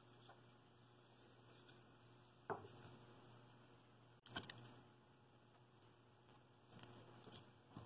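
Near silence with a faint low hum. A few light knocks and rustles come from wooden bowl pieces being handled and set down on a wooden workbench, the sharpest knock about two and a half seconds in.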